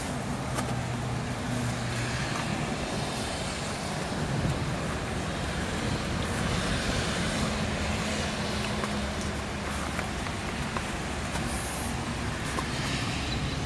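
Steady outdoor background noise: a low rumble with an even hiss, with no single event standing out.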